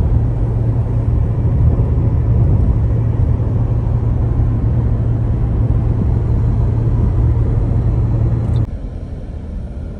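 Steady low rumble of a car driving along a highway: engine and road noise. It cuts abruptly about nine seconds in to a quieter stretch of similar driving noise.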